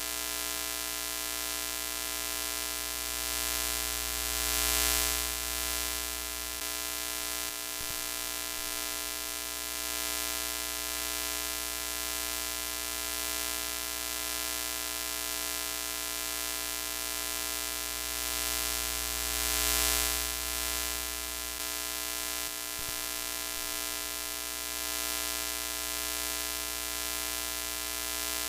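Broken-TV sound effect: a steady electrical buzz over a hiss of static. It swells louder twice, about five seconds in and again around twenty seconds, and dips briefly soon after each swell.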